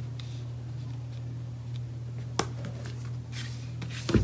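Cardboard eyeshadow palette being handled and shut: a sharp tap about halfway through and a few soft knocks near the end as the lid closes, over a steady low hum.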